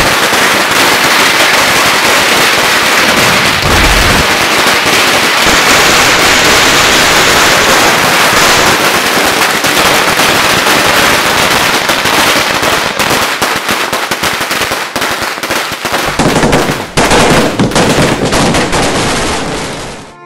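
A long string of firecrackers going off in a loud, unbroken rapid crackle, with a brief lull and then a few louder bangs near the end before it stops abruptly.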